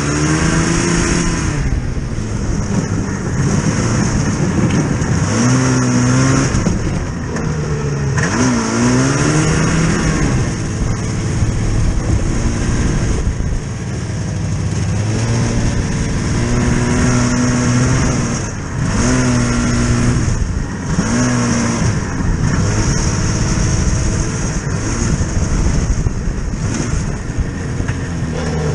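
Vehicle engine being driven, revving up and easing off again and again, with a steady hiss running underneath.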